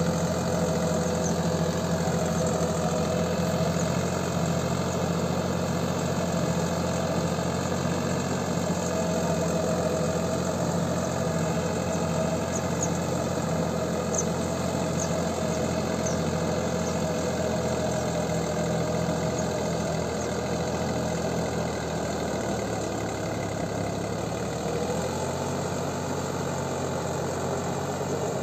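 Deutz-Fahr Agrolux 50 tractor's diesel engine running steadily under load while it pulls a rotary tiller through a wet paddy field. Late on, the engine note sags briefly and then picks back up.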